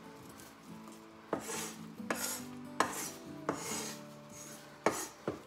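Kitchen knife knocking on a wooden cutting board as garlic cloves are cut: about six sharp, irregularly spaced knocks from about a second in, some followed by a brief scrape.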